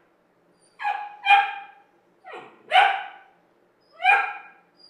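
Puppy barking: five short, high barks in loose pairs with pauses between.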